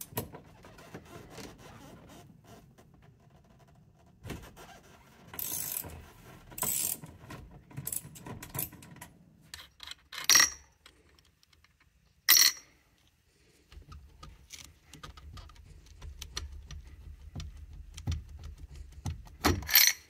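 Ratchet wrench with a 27 mm socket clicking and rasping as it undoes the central nut holding a steering wheel. Scattered clicks come from the parts being handled, with two sharp knocks about ten and twelve seconds in.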